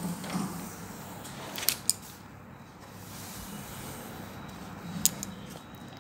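Pencil writing on notebook paper: a faint scratchy hiss with a few sharp clicks, two close together about two seconds in and two more about five seconds in.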